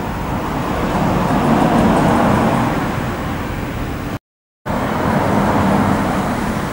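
Steady rumble of road-traffic noise that swells and eases, cut by a sudden half-second dropout to silence about four seconds in.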